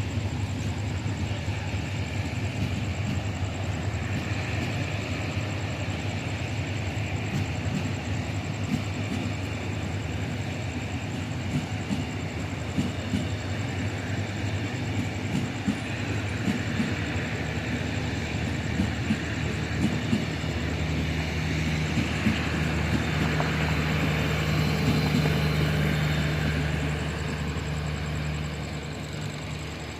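Diesel train running on the line: a steady engine drone with scattered clicks of wheels over rail joints. About twenty seconds in the engine note rises and grows louder, then fades near the end.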